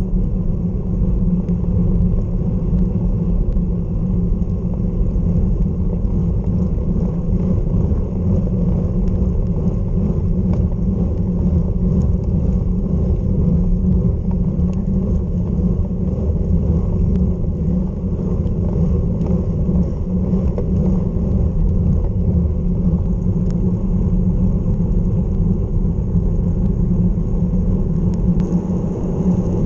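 Steady wind rumble and road noise on the microphone of a camera mounted on a moving bicycle, riding a wet road.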